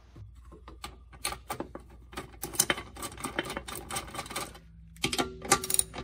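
Bolts being run down by hand with a socket driver, fastening a sheet-metal rock guard: a long run of rapid, irregular metallic clicks, a short pause, then a second burst of clicks near the end.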